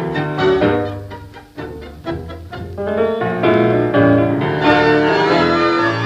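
Tango orchestra playing an instrumental passage with no voice: short clipped chords at first, then longer held melodic notes from about halfway through.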